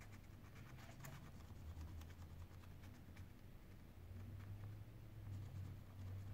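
Faint scratching and light ticks of a fine pointed metal tool worked along the edge of a Sony Xperia Z5 Compact's newly fitted display, over a low steady hum.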